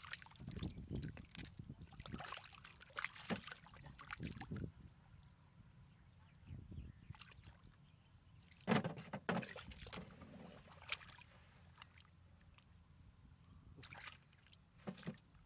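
Hands sloshing and splashing in shallow muddy water while groping in the mud for fish, in irregular splashes with the loudest about nine seconds in.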